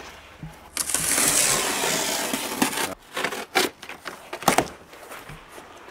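Large cardboard sheet being torn and dragged off a wooden shipping crate: one long scraping rip lasting about two seconds, then several short rips and knocks.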